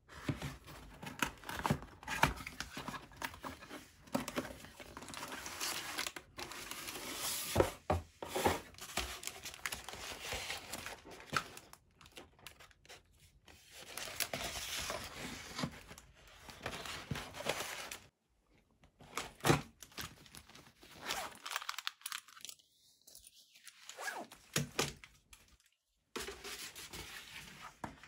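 Cardboard box and paper being handled: irregular tearing, crinkling and rustling of paper and cardboard as a paper wall calendar is taken out and unrolled, with a few short pauses.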